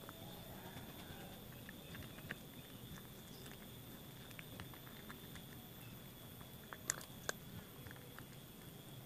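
A cat chewing and crunching crispy fried catfish, faint small clicks scattered throughout, with two sharper crunches about seven seconds in.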